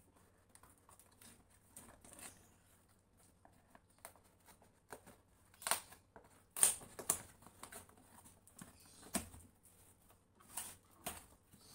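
Scissors cutting packing tape on a cardboard box and the flaps being pried open: scattered scrapes, snips and short rips, the loudest a cluster about halfway through and a few more near the end.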